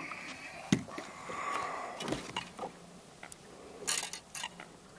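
A few sharp clicks and knocks of handling, with a cluster about four seconds in, as fishing line is drawn in by hand over the side of a boat.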